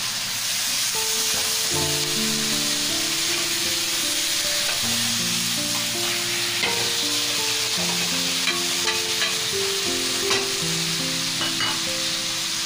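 Onion, tomato and green chilli slices sizzling in hot oil in an aluminium kadhai, stirred with a wooden spatula that scrapes and taps the pan now and then.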